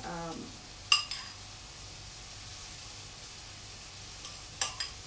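Metal spoon clinking against a ceramic bowl while scooping mince: one sharp ringing clink about a second in and a couple of lighter taps near the end, over a steady hiss.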